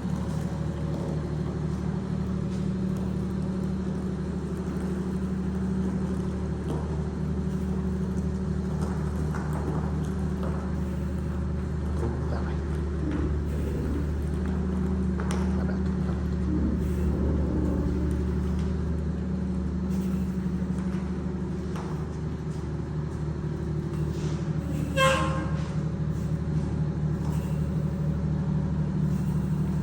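Wanderlodge RV bus's diesel engine idling steadily, with one short sharp noise near the end.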